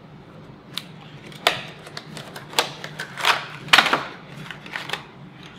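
A kitchen knife slitting the tape seal on a small cardboard box, then the box opened and its clear plastic packaging handled. A run of about seven short, sharp scrapes and clacks, the loudest a little past the middle.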